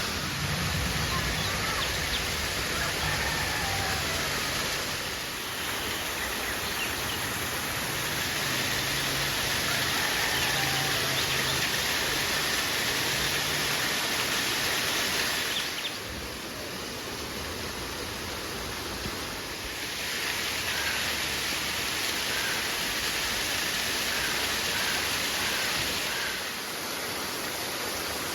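Steady rushing of a river flowing, a constant wash of water that shifts in level a few times.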